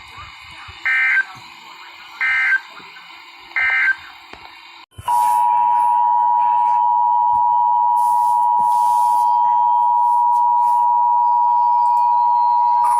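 Emergency Alert System data signal: three short warbling bursts about a second apart over receiver hiss, the end-of-message code closing an alert. Then a steady, loud Emergency Alert System attention tone near 1 kHz sounds for about eight seconds, announcing the next warning.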